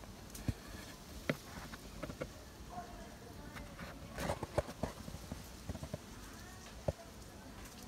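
A dozen or so sharp, irregularly spaced clicks and knocks, bunched together about halfway through, over a low steady background, with faint voices.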